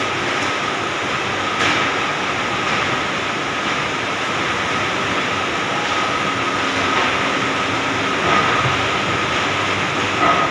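Steady workshop machinery noise with a faint high whine. Two light clicks, about two seconds in and near the end, come as a small steel gear is set against the teeth of a large lathe gear.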